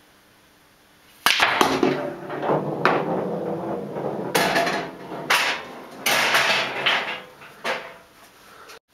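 Pool balls on a pub-style pool table: a sharp cue-ball knock about a second in, then several seconds of balls rolling and rattling, with a ball dropping into a pocket and further clacks.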